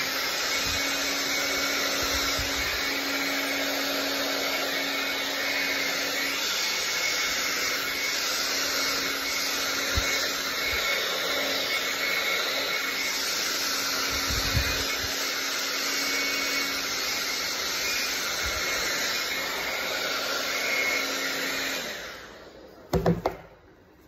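Handheld hair dryer running steadily, a constant rush of air over a low motor hum. It cuts off near the end, followed by a couple of short knocks.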